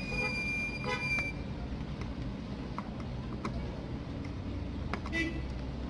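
Steady low background hum. A high steady beep-like tone cuts off about a second in, and a few faint clicks follow.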